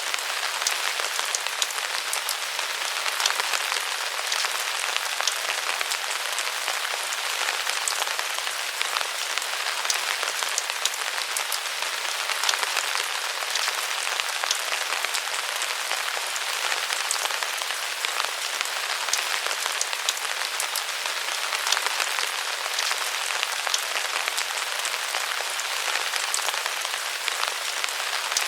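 Steady rain falling under the eaves of a roof, an even hiss with many separate drops ticking and pattering close by.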